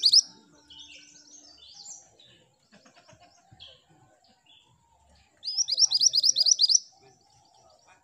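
Minivet singing: a loud run of about a dozen quick, rising, high whistled notes lasting about a second and a half, coming about five and a half seconds in. Softer scattered chirps come before it, and the end of an earlier run is heard at the very start.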